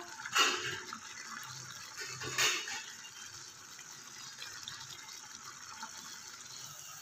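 Pan of rice and peas boiling in water, a steady bubbling, with two brief louder swishes about half a second and two and a half seconds in as a spatula stirs through it.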